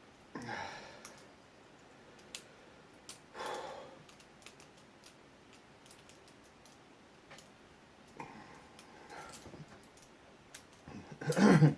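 Lock pick and tension wrench working an ABUS 83AL/45 padlock's keyway: scattered small metallic clicks of pins being raked, with a few short scratchy bursts of scraping and a louder clatter of handling the lock near the end.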